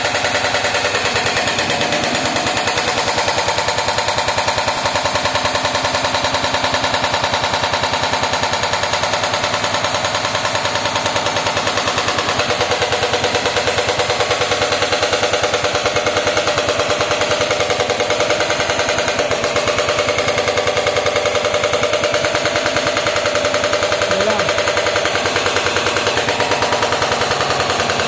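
Caterpillar backhoe loader's hydraulic breaker hammering rock, a rapid, steady, unbroken run of blows like machine-gun fire.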